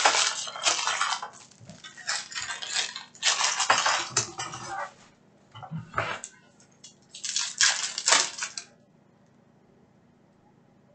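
Crinkling plastic trading-card pack wrappers and cards being handled, in four short bursts of rustling.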